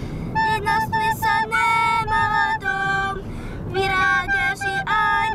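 A young girl singing a melody into a microphone, with a recorder playing along, over a low, steady car-interior rumble.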